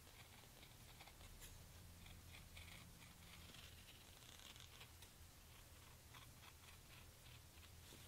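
Faint, crisp cutting strokes of a leathercraft knife trimming the excess edge off a sewn leather knife holster, a quick run of short scrapes, over a low steady hum.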